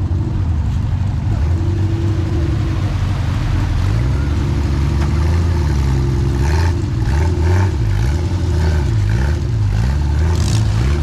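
A classic Jeep's engine pulling through deep mud and water. It runs steadily at first, then from about four seconds in the driver works the throttle, so the engine speed rises and falls in quick repeated surges.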